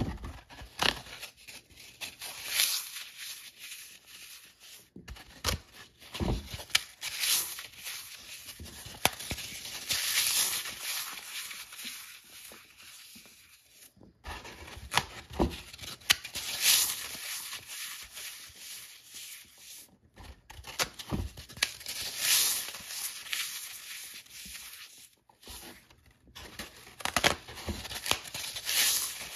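Dry, sun-baked green floral foam being crushed and crumbled by hand: fingers press into a pre-scored grid block, grind it to crumbs and snap off cubes. The foam gives repeated crunching and crackling in clusters, with a few abrupt breaks.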